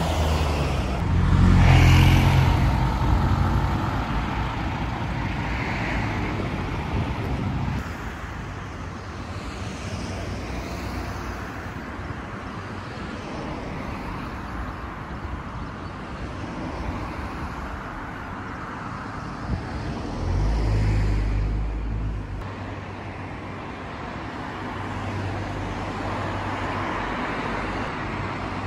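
Road traffic going by steadily. A vehicle passes close a couple of seconds in, and another about two-thirds of the way through, each with a louder low rumble.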